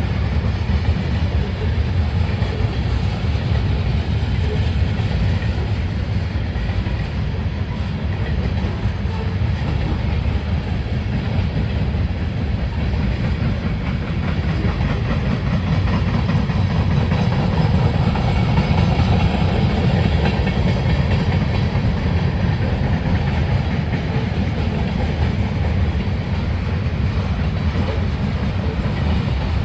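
Freight cars of a CSX manifest train rolling past: a steady low rumble of steel wheels on the rails.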